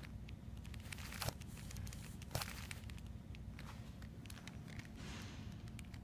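Quiet indoor room tone with a steady low hum, scattered small clicks and two sharper knocks, about one and two and a half seconds in.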